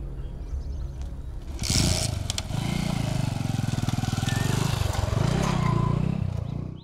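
Motorcycle engine starting about two seconds in, then running with the revs dipping and rising again, stopping abruptly near the end.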